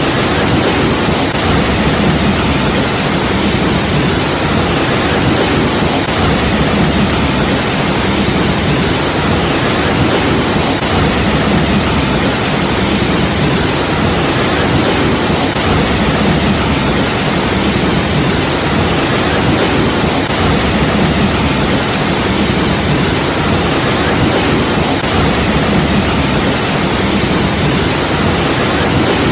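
Waterfall, water pouring and crashing in a loud, steady rush without pause.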